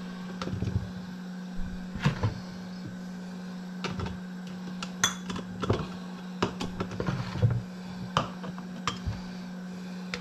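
Cooked new potato pieces dropped with kitchen tongs through a plastic funnel into glass jars: scattered light knocks and clinks of potato, tongs and glass. A steady low hum runs underneath.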